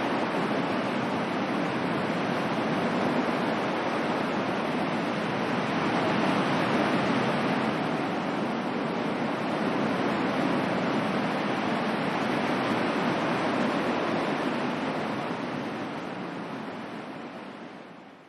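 Ocean waves washing in a steady surf, rising and falling in slow gentle swells, then fading out over the last few seconds.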